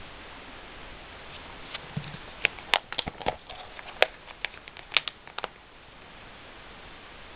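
Plastic binder page sleeves crackling and clicking as the trading-card binder is handled, a quick cluster of sharp crinkles and taps through the middle, over a steady hiss.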